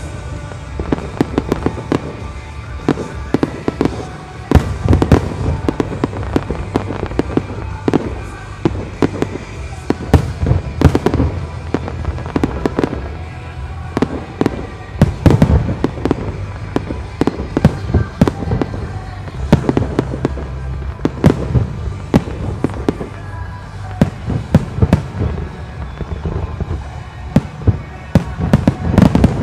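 Display fireworks going off in rapid succession: a continuous run of shell bursts and sharp bangs, coming in dense clusters, with music playing underneath.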